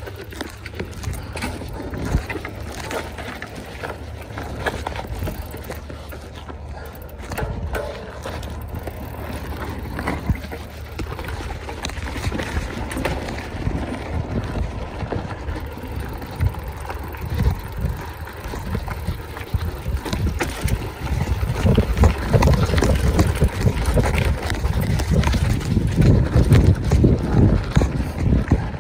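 Mountain bike being ridden over rough ground: wind buffeting the microphone, tyre noise and a dense rattle of small clicks and knocks from the bike. It grows louder and rougher about two-thirds of the way through.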